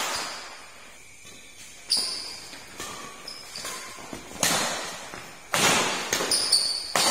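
Badminton rackets hitting a shuttlecock back and forth in a doubles rally: a run of sharp, echoing hits about once a second, starting about two seconds in.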